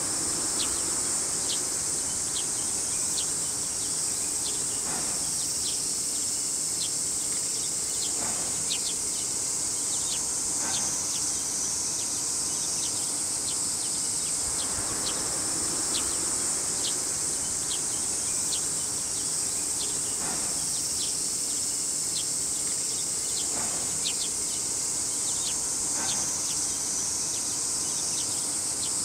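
Chorus of insects: a steady high-pitched drone with many short chirps repeating irregularly over it.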